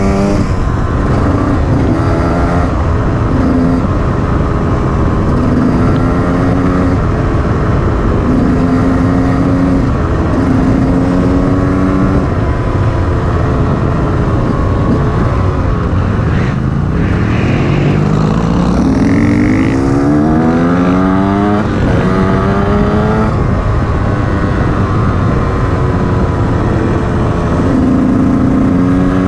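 KTM EXC 150 two-stroke enduro engine running under way on a gravel track, its revs rising and falling again and again as the rider works the throttle and gears, with a long climb in pitch past midway as it accelerates. A steady rush of wind and tyre noise runs underneath.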